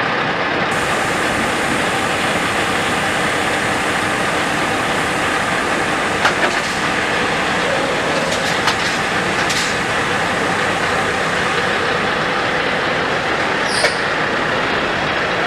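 Heavy diesel engine running steadily, with a few faint clicks and one short high squeak near the end.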